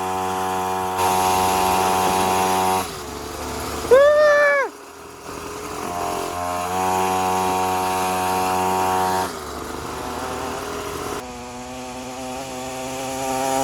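50cc two-stroke mini moto engine running at a steady high pitch under throttle. It eases off about three seconds in and again around nine seconds, then picks up again near the end. A brief loud rising-and-falling whoop comes about four seconds in.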